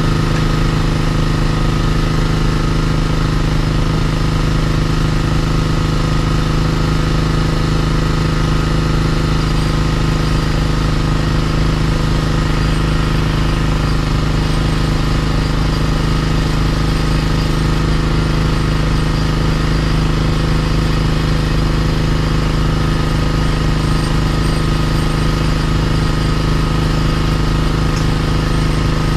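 Small engine of a LUKAS hydraulic rescue-tool power unit running at a steady speed, driving the pump for the hydraulic cutter, with a constant low hum.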